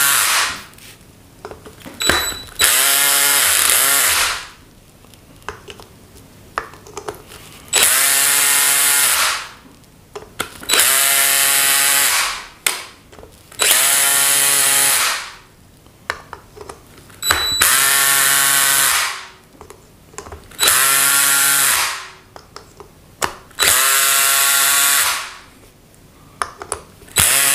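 Electric drill-driver run in about eight short bursts a few seconds apart, each a second or so long with a motor whine that climbs in pitch as it spins up, driving home the cover bolts of an LPG gas reducer.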